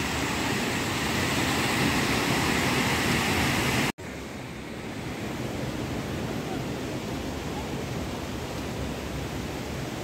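Steady rush of a flowing mountain stream. It cuts off abruptly about four seconds in and comes back softer and duller.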